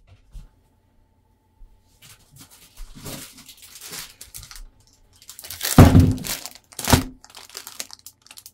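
Plastic packaging of vinyl gloves crinkling and rustling as it is handled, with two loud crackles a little past the middle.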